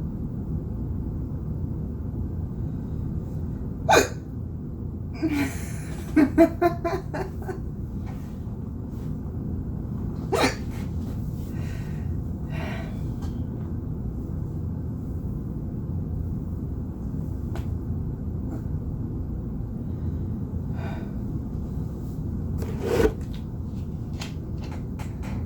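A person hiccuping: sharp single hiccups about four seconds in, about ten seconds in and near the end, with a quick string of shorter catches soon after the first, over a steady low rumble.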